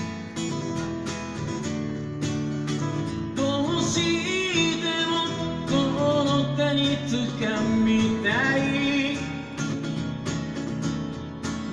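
Steel-string acoustic guitar strummed live, with a man's singing voice joining about three and a half seconds in and carrying a melody with gliding notes over the chords.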